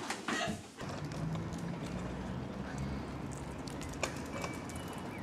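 A few quick footsteps, then the steady low hum of an electric motor raising a fire station's sectional bay door.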